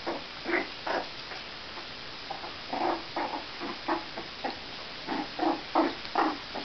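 Four-week-old Jack Russell Terrier puppies giving short squeaks and yips while play-fighting, about a dozen in irregular clusters, the busiest run near the end.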